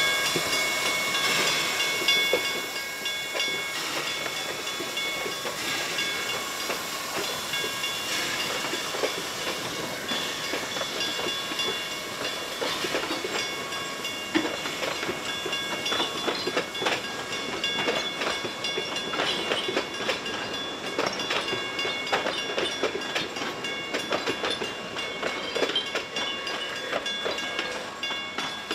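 Puffing Billy's wooden passenger carriages rolling past over a level crossing, their wheels clicking irregularly over the rail joints. Steady ringing tones from the crossing's warning bell run underneath.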